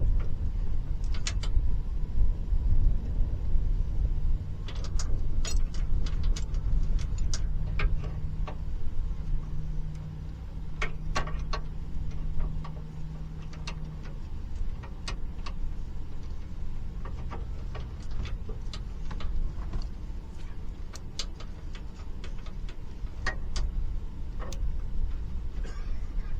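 Truck driving, a steady low rumble with frequent sharp clicks and rattles throughout, and a low steady hum for about ten seconds early on.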